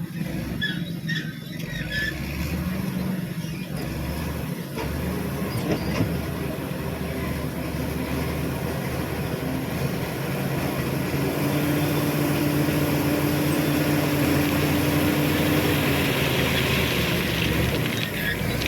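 Shantui SD16E bulldozer's diesel engine running under load while working sand. It grows louder about halfway through, with a steady whine held for several seconds in the second half.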